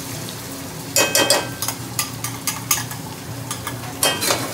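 Onions frying in a pot with whole spices, a steady sizzle, while a utensil knocks and scrapes against the pan in quick clusters of clicks about a second in, around two seconds, and again near the end as they are stirred.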